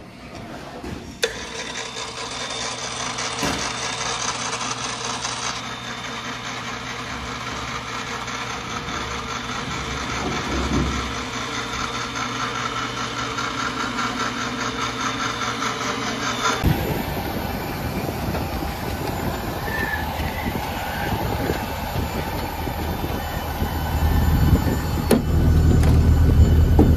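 An engine running steadily, heard as several clips joined by abrupt cuts.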